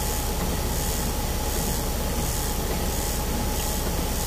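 Vehicle engine idling, heard from inside the cab as a steady low rumble under an even hiss.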